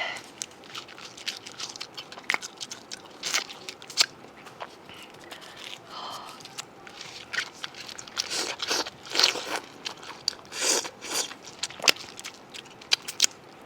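Close-up eating sounds: food being bitten into and chewed, heard as irregular sharp crackling clicks, coming thicker and louder a little past the middle.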